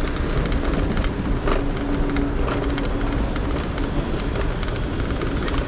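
Road noise from a car driving in city traffic: a steady rush of tyre and wind noise, with a low steady hum for a couple of seconds near the start.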